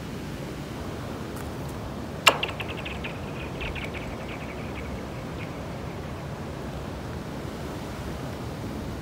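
A rock strikes thin pond ice with a sharp crack about two seconds in, then skips across it, setting off a rapid string of high, ringing pings from the ice that fade away over about three seconds. Steady wind noise runs underneath.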